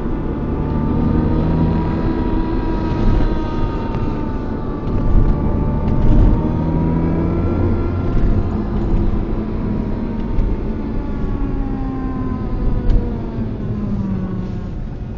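Porsche Boxster 987's flat-six engine running over a low rumble, its pitch rising and falling gently with the revs.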